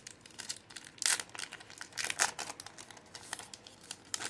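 The foil wrapper of a Pokémon card booster pack being torn open and crinkled by hand: irregular rustles and tears, with louder ones about one, two and three seconds in.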